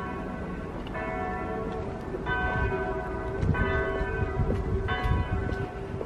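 Church bells ringing: about five struck notes of different pitches, each ringing on and fading, with a low rumble swelling in the middle.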